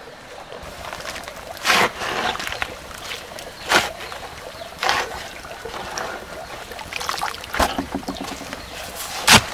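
Steel shovel mixing water into a ring of cement and sand on the ground: about five wet scraping, sloshing strokes a second or two apart, with lighter scrapes between them. The last stroke, near the end, is the loudest.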